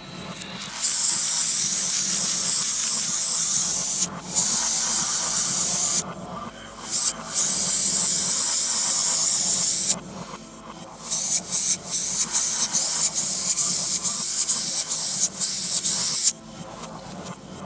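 Aerosol spray paint can hissing in long bursts of two to three seconds each, then a run of short quick puffs, stopping about a second and a half before the end.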